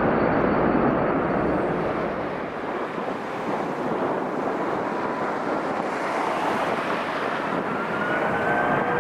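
Jet engines of an Airbus A330-200 just after touchdown, a loud broad rush. About two and a half seconds in it gives way to the steady rush of an Airbus A330-300's engines on final approach, with a whine that rises in pitch near the end as the jet comes closer.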